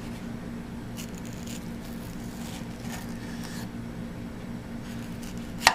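A knife slicing a tomato on a cutting board, a few faint cuts over a steady low hum, with a sharp click near the end.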